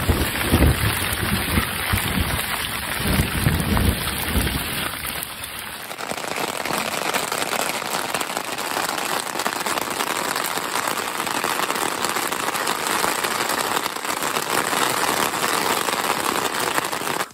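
Thunder rumbling in waves over heavy rain for about six seconds. Then, after a cut, steady rain pattering on a tent's fly.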